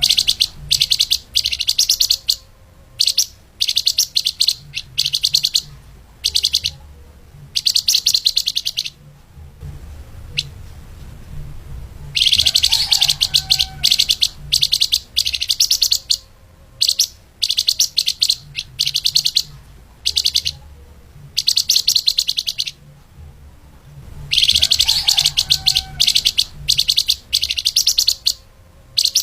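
Flamboyan (lemahan) songbird's fast, dense, high-pitched chattering song in bursts with short gaps. The same run of phrases repeats about every twelve seconds, as a looped masteran tutor recording for training caged songbirds does, with a faint low hum underneath.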